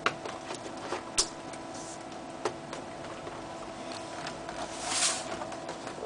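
Scattered clicks and light taps of laptop parts and a hard drive being handled, with a short scrape or rustle about five seconds in, over a steady faint hum.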